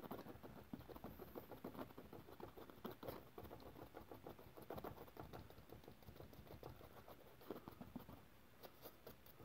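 Faint, rapid, irregular tapping and scratching of a small paintbrush dabbing oil paint onto a stretched canvas, easing off near the end.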